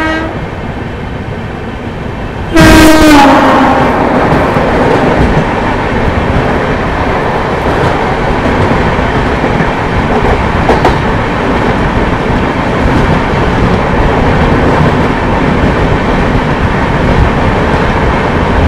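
About two and a half seconds in, an oncoming train sounds its horn as it passes close alongside, the horn dropping in pitch as it goes by. It is followed by the loud, steady rush and rumble of the Gorakhpur–Anand Vihar Humsafar Express coaches passing the moving train, heard from an open coach doorway.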